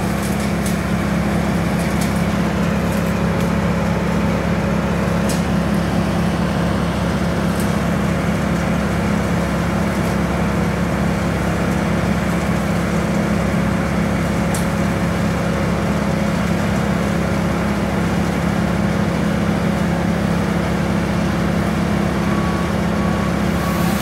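Heavy engine of the tree crew's equipment running at a steady speed: a constant low drone that does not rise or fall, with a few faint ticks over it.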